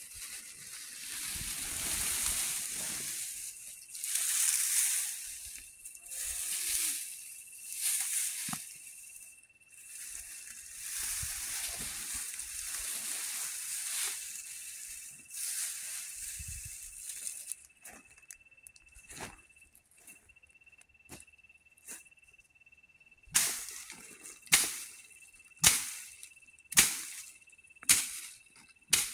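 Dry bean plants rustling and crackling against a plastic tarp as they are handled and piled up. About two-thirds of the way through, a stick starts beating the pile in sharp strokes about a second apart, six in all: beans being threshed by hand. A faint steady high tone runs underneath.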